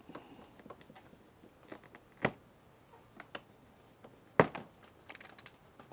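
Utility knife working at the plastic packing strap on a cardboard box: small scattered clicks, with two sharp snaps about two and four and a half seconds in, then a quick run of faint ticks.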